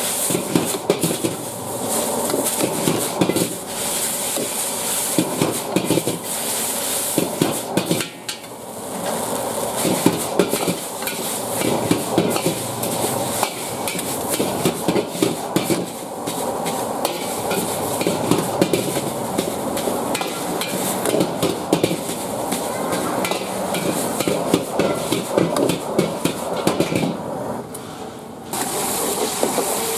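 Metal ladle clanking and scraping against a wok in quick, irregular strokes as flat rice pho noodles are stir-fried, with the hiss of frying underneath. The clatter dips briefly about eight seconds in and again just before the end.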